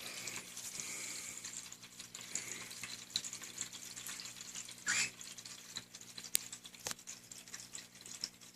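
Pet cockatiels moving about in their cage: faint rustling and scratching with small ticks, one brief louder chirp about five seconds in and a sharp click soon after, over a low steady hum.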